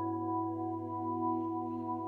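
Background music: a soft ambient piece of long held tones, one steady chord sustained throughout.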